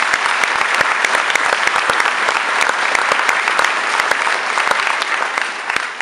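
An audience applauding: steady, dense clapping that dies away near the end.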